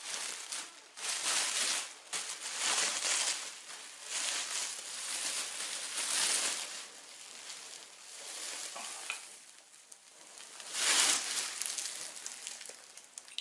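Plastic bubble wrap crinkling and rustling in repeated bursts as it is pulled off a section of artificial Christmas tree. Near the end the tree's plastic branches rustle as they are handled, with the loudest burst about eleven seconds in.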